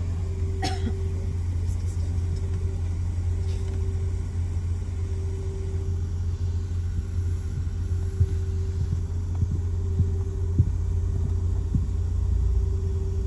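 Steady low rumble and hum inside the cabin of a Boeing 717-200 on the ground before takeoff. A higher hum swells and fades over and over, with a click about half a second in and a few soft knocks later on.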